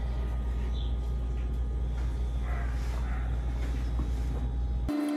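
Steady low hum or rumble with faint soft background noises. It cuts off abruptly just before the end, where a single steady higher tone remains.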